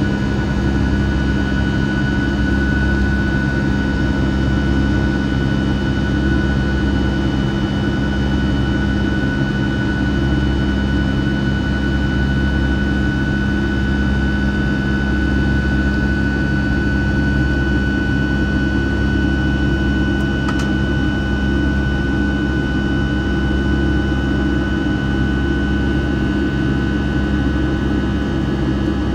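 Rolls-Royce RB211-535E4 turbofan of a Boeing 757-200 at climb power, heard from inside the cabin: a steady low rumble with a steady high whine over it.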